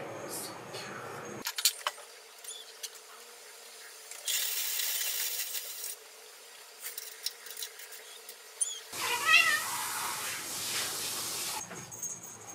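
Clicking of a computer keyboard's keys in scattered taps, then about nine seconds in a Munchkin cat gives a short, wavering meow.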